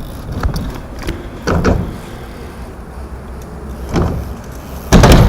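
BMX bike rolling with scattered clicks and knocks during a 450 spin attempt, then a loud thump of the bike landing near the end.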